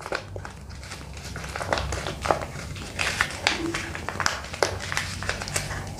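Paper rustling and crinkling as two photographs, stacked face to face, are folded over and pressed together by hand, in many small irregular crackles.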